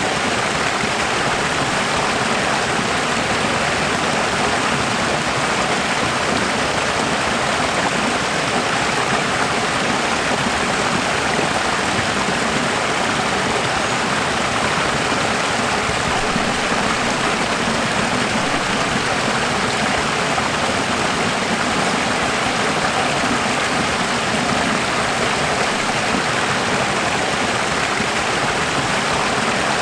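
Running water flowing in a steady, unchanging rush, an even hiss with no distinct splashes or drops.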